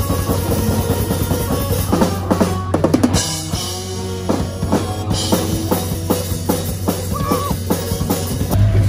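Music with a drum kit playing a beat of bass drum and snare hits. Near the end it gives way to louder music with a heavy bass.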